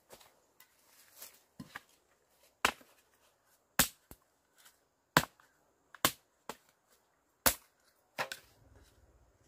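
A hand tool chopping at bamboo and earth: about six sharp strikes roughly a second apart, with fainter knocks between them.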